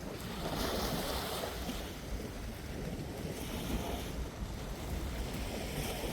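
Wind buffeting the microphone over the wash of sea waves, the hiss of the water swelling about half a second in and again near the end.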